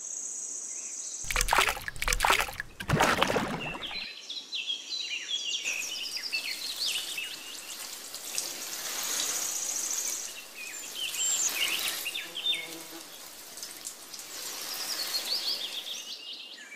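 Thin stream of water trickling from a tiny toy watering can onto sand, with birds chirping through it. Loud knocks and handling noises fall in the first few seconds.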